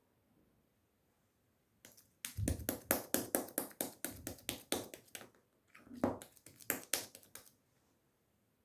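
Clear slime with strawberry charm pieces being pressed and poked by fingers, making a fast run of crisp clicking pops, about six a second. The clicks start about two seconds in, pause briefly after about five seconds, then resume and stop well before the end.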